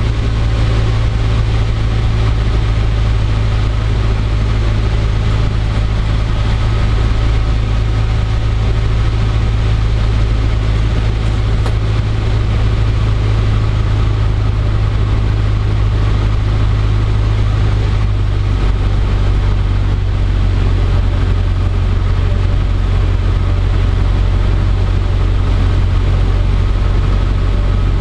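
Cessna 150D's Continental O-200 four-cylinder engine and propeller droning steadily, heard inside the cockpit with airflow noise, on approach to landing. The low drone shifts slightly in pitch about eighteen seconds in.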